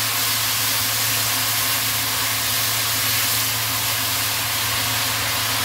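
Bitter melon and oyster mushrooms sizzling steadily in hot oil in a wok as they are stir-fried, over a steady low hum.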